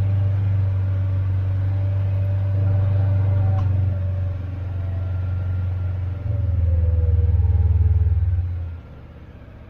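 Kawasaki Mule Pro FX1000 side-by-side's engine running as it drives along, with a steady low hum that gets louder and deeper about six seconds in, then falls away sharply near the end as the vehicle comes to a stop.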